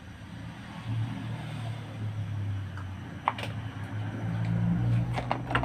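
A low, steady engine-like hum, louder from about a second in, with a sharp click about three seconds in and a few clicks near the end.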